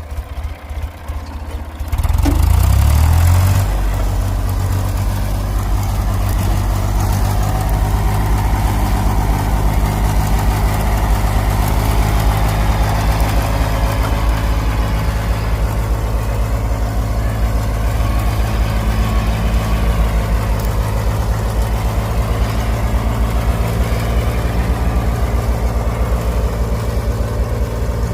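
Tractor engine idling, then revved up about two seconds in and running steadily while ploughing.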